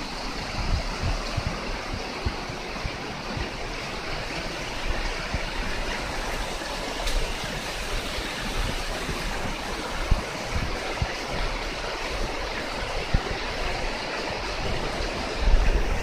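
Small waterfall: a steady rushing hiss of water falling down a narrow cascade, with irregular low thumps on the microphone.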